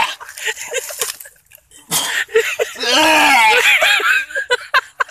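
A man's wordless vocal sounds: short sharp noises in the first two seconds, then a loud, wavering, strained cry from about two seconds in until near the end.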